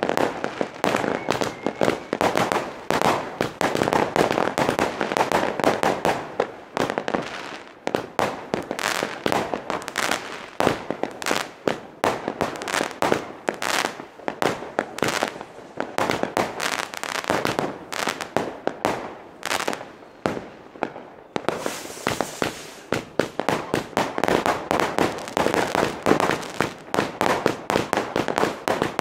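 Geisha-Rubro Commander 110-shot compound firework battery firing in rapid succession. Its launch thumps and bursting bangs come several a second without a break, with a hissing, crackling spell a little past two-thirds of the way through.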